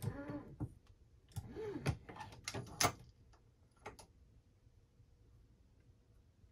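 Hornady Lock-N-Load AP press and its case-activated Hornady Bench Rest powder measure worked by hand as a powder charge is thrown: a handful of sharp clicks and clacks over about two seconds, the loudest near the middle.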